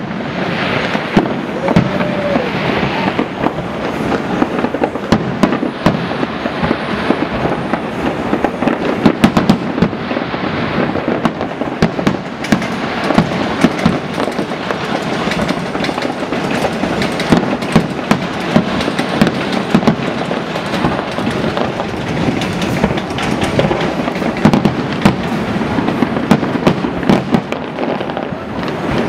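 Aerial fireworks display: a continuous barrage of shells bursting, with many bangs and crackles overlapping in quick succession and no break.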